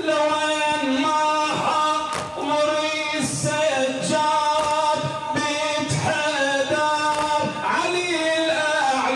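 Male voice chanting a latmiyya, a Shia mourning elegy, unaccompanied, in long held melodic lines that bend in pitch.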